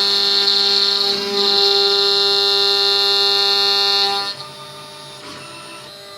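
CNC router spindle running with a steady high whine while cutting a wooden guitar body. The whine is loud for about four seconds, then drops sharply to a much quieter level.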